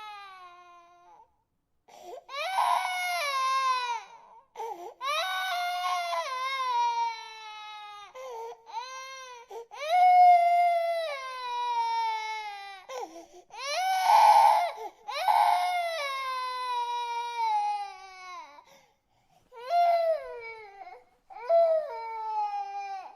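Infant crying: a run of loud wails, most starting high and falling in pitch, each one to three seconds long, broken by short gasps for breath.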